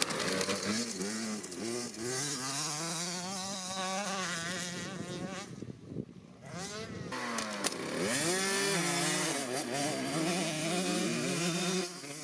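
Minicross motorcycle engine revving hard as it is ridden over the dirt track, its pitch repeatedly climbing and dropping with throttle and gear changes. It fades briefly about six seconds in as the bike moves farther off.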